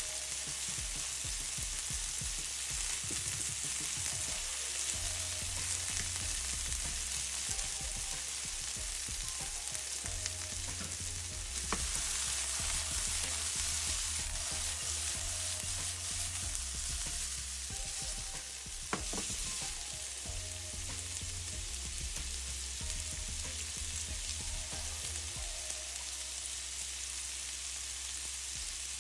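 Food sizzling steadily as it fries in a hot, oiled pan, with a couple of sharp clicks about a third and two thirds of the way through.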